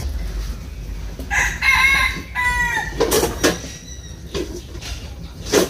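A rooster crows once about a second in: a drawn-out call that falls in pitch at its end. A few sharp knocks follow.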